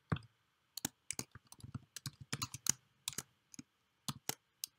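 Typing on a computer keyboard: a run of quick, irregularly spaced key clicks.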